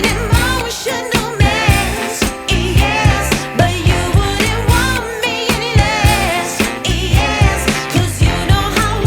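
Background music with a sung vocal line over a steady beat.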